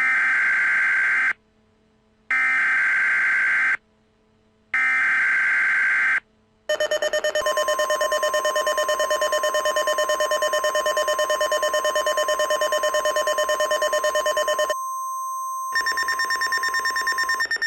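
Emergency Alert System header: three short bursts of screeching digital data tones, each about a second and a half long with a second's gap between them. These are followed by a rapidly pulsing electronic attention tone with a steady higher tone over it. That tone cuts out for about a second near the end, then resumes with a changed tone before stopping.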